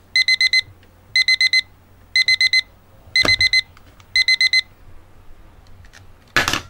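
Digital alarm clock beeping in quick groups of four, about one group a second, five groups in all. A low thump comes during the fourth group, and a short, loud rustling knock comes near the end.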